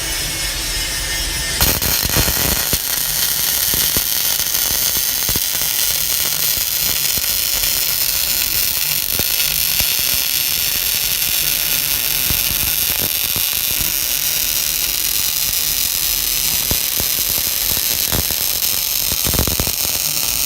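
MIG welder arc crackling steadily while a small bead is run, starting about a second and a half in.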